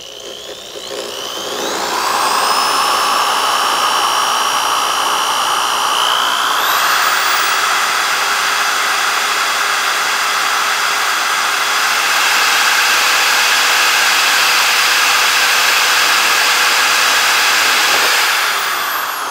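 Corded DeWalt electric drill spinning up with a rising whine and drilling through a painted polycarbonate RC truck body, running steadily at high speed, then winding down in the last second.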